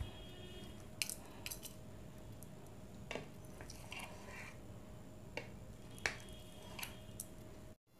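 A steel kitchen knife tapping and scraping against a plate as soft homemade paneer is cut into cubes: scattered light clicks, about ten in all, over a faint steady hum.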